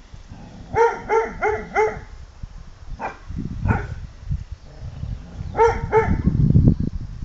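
English pointer barking on guard: a quick run of four barks about a second in, two single barks a couple of seconds later, and two more near the end, over a low rumbling noise.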